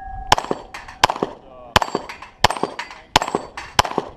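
9mm Glock 34 pistol firing a string at steel plates: about five shots roughly 0.7 s apart. Fainter clangs of steel being hit follow each shot, with some ringing between.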